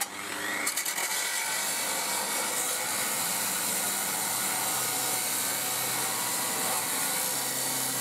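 Angle grinder cutting through a metal body mount under a Land Rover, throwing sparks. It winds up to speed in the first second, then holds a steady grinding hiss.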